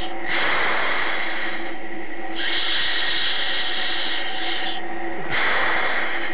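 A pilot breathing into an oxygen-mask microphone on the cockpit hot mic: slow breaths in and out, each lasting one to two seconds, over a steady electrical hum.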